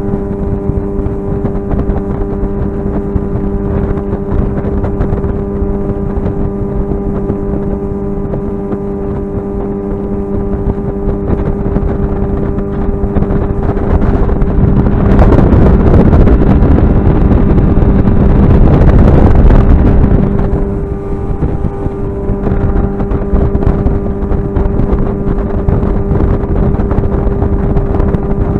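A boat motor running steadily with a constant hum. Around the middle a louder rushing noise swells for about six seconds, then falls back.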